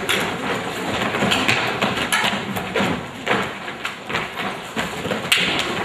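Feet thudding and tapping on wooden stage boards over a dense wash of crowd voices, with a sharper knock about five seconds in.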